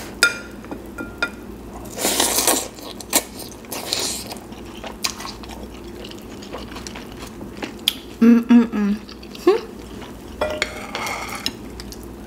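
Close-miked eating of ramen noodles: several short slurps and chewing, with sharp clicks of chopsticks against a ceramic bowl now and then. About eight seconds in comes a short hummed sound, the loudest moment.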